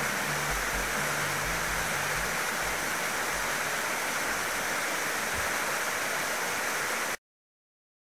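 Mountain stream water rushing steadily over a small rocky cascade. Faint low background music fades out in the first few seconds, and all sound cuts off abruptly about seven seconds in.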